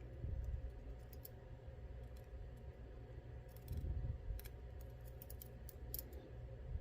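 Small, sharp, irregular clicks and ticks of tools against a Mul-T-Lock MT5+ lock housing as a driver pin spring is worked out, in clusters about a second in and again from the middle to near the end, over low handling bumps.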